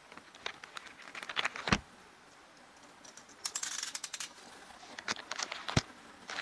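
Plastic mailer package being handled on a table: crinkling, rustling plastic with scattered clicks, a dense burst of crinkling around the middle, and two sharp knocks, about two seconds in and near the end.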